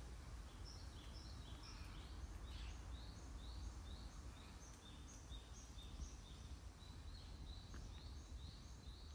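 Small birds chirping, many short high notes a few times a second, over a steady low background rumble.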